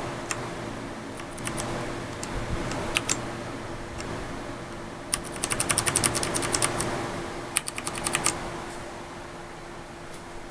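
Ducky Shine 3 mechanical keyboard with Cherry MX Brown switches being typed on. A few scattered keystrokes come first, then a fast run of keypresses about five seconds in and a shorter run a couple of seconds later.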